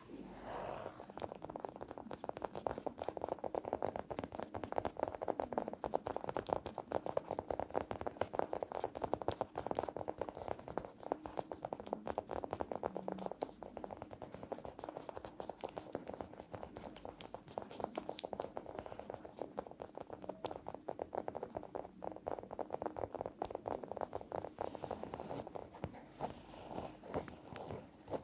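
Fast ASMR tapping: a dense, steady run of many quick taps a second on a hard object, close to the microphone.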